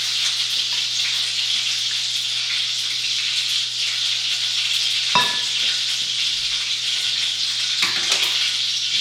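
Butter melting and sizzling in a pan on the stove, a steady hiss, with a couple of brief knocks about five and eight seconds in.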